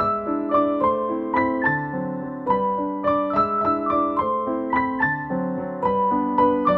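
Background piano music: a light melody of single notes at an unhurried, steady pace, each note struck and fading.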